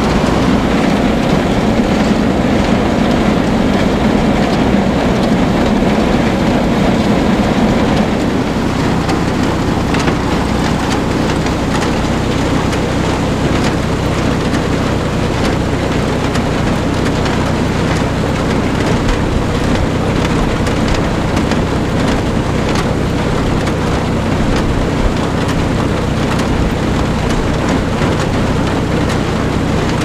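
Old Farmall tractor engine running steadily, driving a chain-and-slat bale elevator that rattles and clanks as it carries a straw bale up. The sound shifts about eight seconds in, with the steady engine hum more to the fore afterwards.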